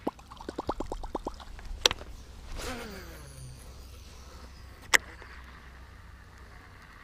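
Baitcasting reel through a cast. It clicks rapidly as the topwater lure is reeled in, gives a sharp click as the spool is thrown into free spool, then makes a whir that falls in pitch as the spool pays out line and slows. About five seconds in, a second sharp click comes as the reel is turned back into gear.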